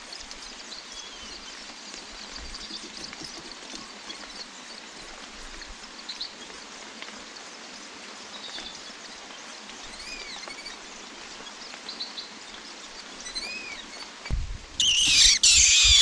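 Steady rain falling, with scattered thin, arching bird chirps. Near the end comes a loud burst of shrill calling from the long-tailed shrike's nest, lasting about a second and a half.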